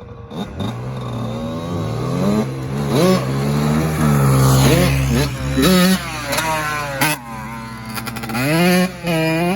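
Dirt bike engine revving in a series of blips, its pitch climbing and falling back several times over a steady idle.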